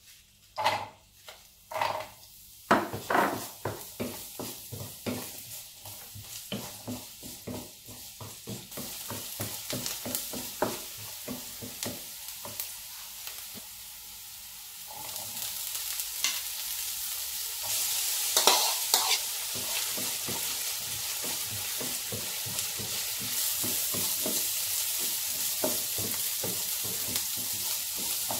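Diced onion frying in hot oil in a non-stick pan, the sizzle rising as it goes, with a wooden spatula knocking and scraping it in and stirring. About halfway through the sizzle grows louder and stays so once mixed peas and carrots are in the pan and being stirred.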